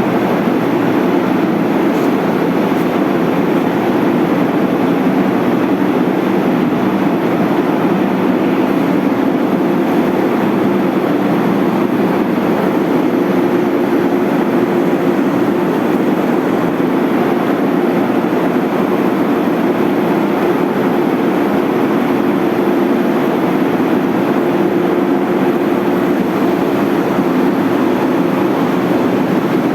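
A half-horsepower vacuum pump running steadily with an even, unchanging noise.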